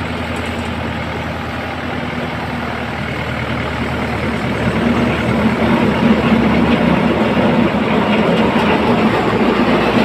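Tractor-driven paddy threshing machine running steadily, its drum and drive pulley spinning, with the tractor engine running under it as a continuous mechanical hum. It grows a little louder about halfway through.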